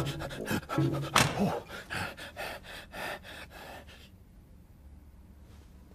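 A cartoon character gasping and breathing quickly, a rapid run of short breathy puffs that fade away about four seconds in.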